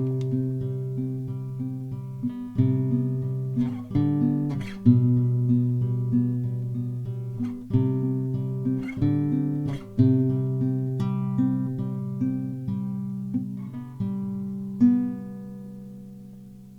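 Background music: acoustic guitar, plucked notes and strums, fading out near the end.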